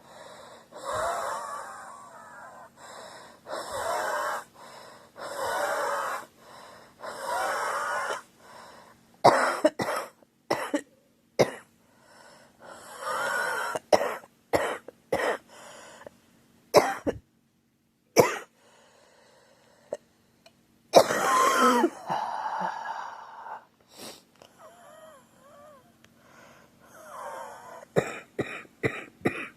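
A girl coughing in fits: several long drawn-out coughs, then sharper single coughs with pauses between, and a quick run of short coughs near the end.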